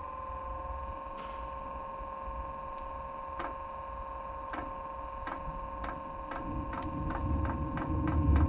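First-generation Eberspächer Airtronic diesel air heater starting up: the blower motor whines steadily while the fuel dosing pump ticks, sparse at first and then faster, about three ticks a second by the end. From about six seconds in a low rumble builds and grows louder as the burner takes light.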